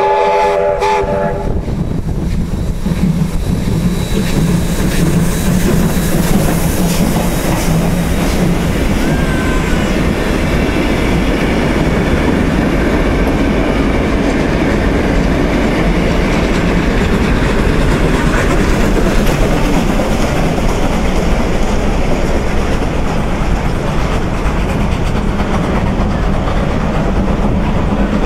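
Victorian Railways A2 class 4-6-0 steam locomotive, A2 986, sounds a short chime-whistle blast, then the steam train passes close: the locomotive working with steam exhaust, followed by its carriages' wheels clicking over the rail joints, the clatter and rumble continuing as the train draws away.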